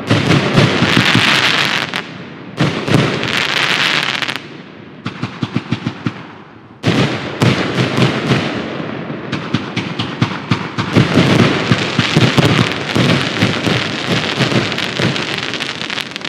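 Riakeo "Wollust" compound fireworks cake firing: shots and aerial bursts with dense crackling, coming in waves. It goes quieter, with separate pops, about five seconds in, builds again about seven seconds in, and fades near the end.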